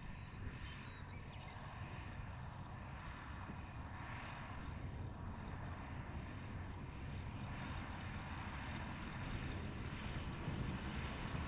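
Low, steady engine rumble of harvest machinery, slowly growing louder.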